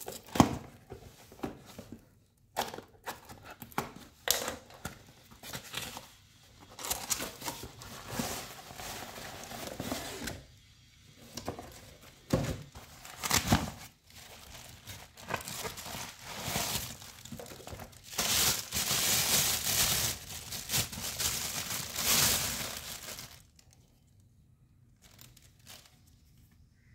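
Unboxing handling noise: a cardboard box and its plastic packaging being pulled open, with irregular crinkling, tearing and rustling and a few light knocks. The loudest, longest crinkling runs for about five seconds late on, then dies away.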